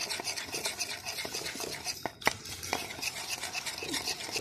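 Wire whisk beating a thick yogurt-and-spice marinade in a ceramic bowl: quick wet strokes, with the wires clicking against the bowl's side, a few sharper knocks a little past halfway.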